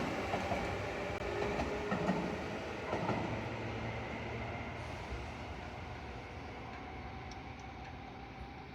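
Tobu Isesaki Line train running on the track and moving away, its sound fading steadily, with a couple of wheel clacks over rail joints about two and three seconds in.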